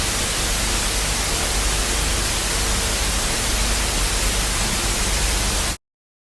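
Steady, loud static hiss, like white noise, that cuts off suddenly near the end, leaving dead silence.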